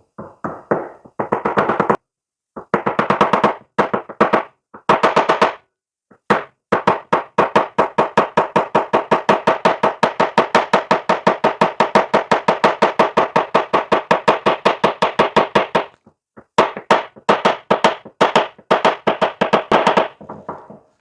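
Rapid, steady hammer taps, several a second in runs with short pauses, driving a new seal down into the recess of a hydraulic cylinder gland.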